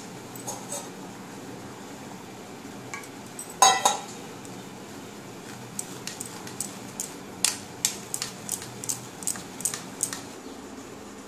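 Steel spoon stirring and scraping wet mustard paste in a tea strainer over a steel bowl: irregular light metal clicks and scrapes, with one louder clink about four seconds in and a quicker run of clicks in the second half.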